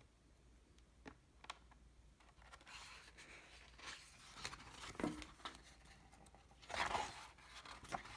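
Paper pages of a hardcover picture book being handled and turned: faint rustling and a few light taps, with the loudest rustle as the page turns about seven seconds in.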